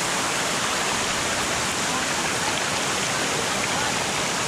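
Water rushing in a thin sheet over a smooth rock slab at a waterfall, close to the microphone: a steady, even wash of water noise.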